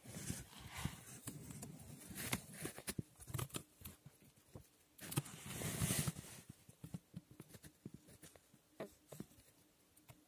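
Newborn French bulldog puppy twitching in its sleep, its paws and body scratching and rustling on newspaper in small taps, with a longer, louder rustle about five to six seconds in.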